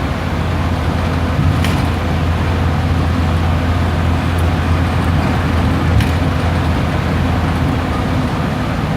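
Scania OmniDekka double-decker bus running steadily under way, a constant low engine drone heard from on board. Two brief clicks or rattles cut through, about 1.5 seconds in and again about 6 seconds in.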